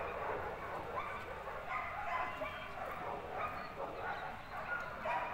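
Working dogs giving short, repeated yips and whines.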